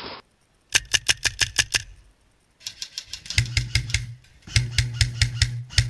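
An airsoft gun firing in bursts of rapid shots, about seven a second, with short pauses between bursts.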